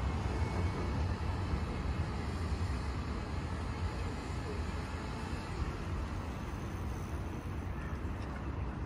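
Steady low rumble of a passing train, easing off slightly toward the end.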